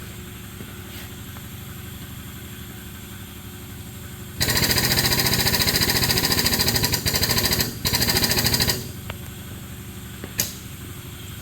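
A powered hydraulic pump chatters rapidly for about four seconds, with two short breaks, as it builds pressure to load the press fixture. A steady low engine-like hum runs underneath, and a sharp click comes near the end.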